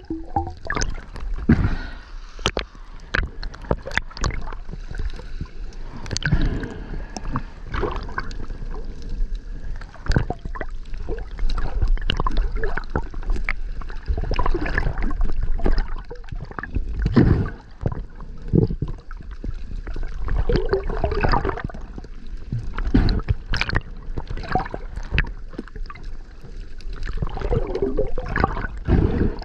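Underwater recording: water gurgling and sloshing against the camera, broken by many sharp clicks and knocks and low thuds.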